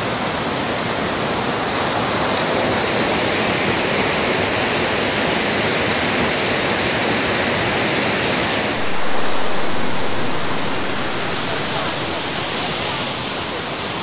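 Waterfall running: a steady rush of falling water. About nine seconds in it turns duller and briefly louder, then settles again.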